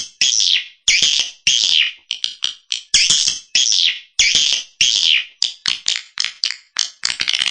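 Swiftlet lure-call recording: high twittering swiftlet chirps repeated about twice a second, with quick short ticks between them. It is the kind of calling sound played to draw a swiftlet colony into a nesting house.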